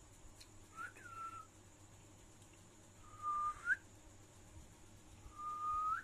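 Three clear whistles: a short one that swoops up and back down about a second in, then two longer, louder steady notes, each with a sharp upward flick at its end.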